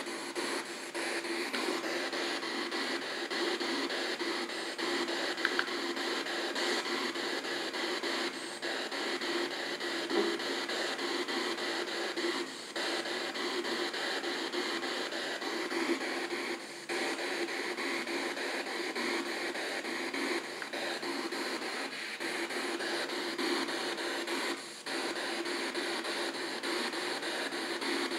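P-SB7 Spirit Box radio scanning through FM stations, played through an external speaker: a steady hiss of radio static, with a few brief dips where the sound drops out.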